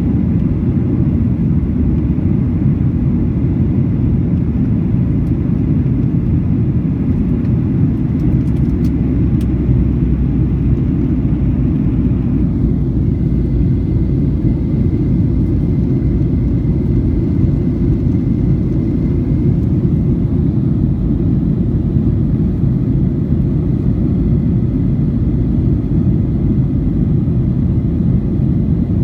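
Steady low rumble of a jet airliner's engines and airflow, heard from inside the passenger cabin. About twelve seconds in, a faint high tone glides down a little and holds for several seconds before fading.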